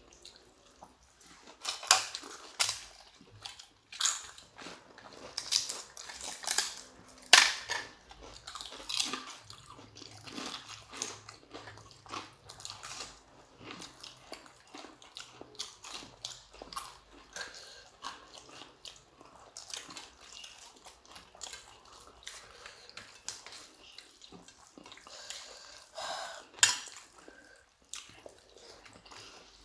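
People eating a meal of rice, prawn curry, chicken pakoda and papad: chewing and crunching, with irregular sharp clinks and clatters of plates and cutlery.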